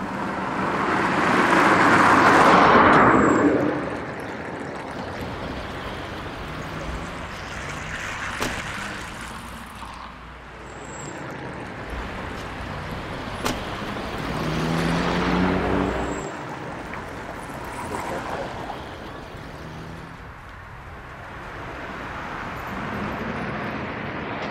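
Road traffic: vehicles passing by, the noise swelling and fading as each goes past, the loudest about two seconds in and another around fifteen seconds in.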